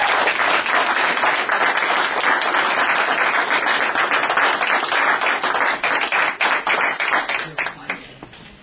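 Audience clapping and applauding, dense at first, then thinning out and fading away near the end.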